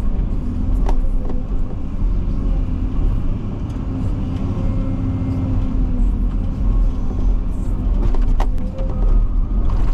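Vehicle engine running with a steady low rumble, with a couple of faint clicks over it.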